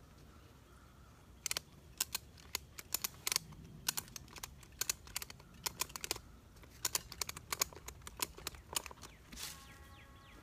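Ratchet strap being cranked tight: a run of sharp, uneven clicks from the ratchet buckle, a few a second, stopping shortly before the end. A short squeak with several tones follows near the end.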